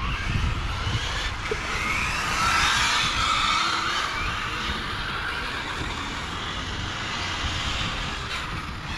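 Radio-controlled cars running on a track, their motors whining and rising and falling in pitch as they speed up and slow down.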